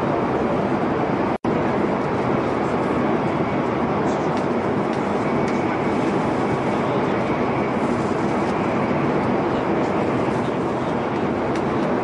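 Steady rushing rumble of a high-speed metro train running. The sound cuts out for an instant about a second and a half in, then carries on unchanged.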